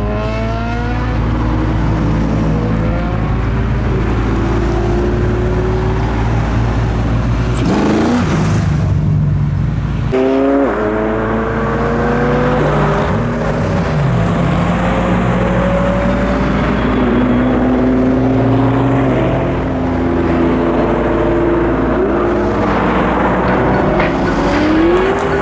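A procession of supercars pulling away one after another past the roadside, their engines revving up with rising pitch, dropping and climbing again as they shift, over a steady low rumble of idling traffic.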